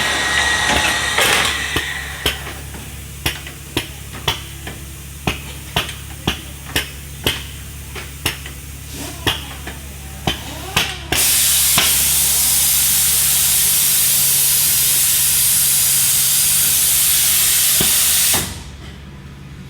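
Builders Automation 996 door machine going through its deadbolt drilling cycle with no cutters fitted: a string of sharp clicks with short puffs of air, then a loud steady hiss of compressed air for about seven seconds that cuts off suddenly.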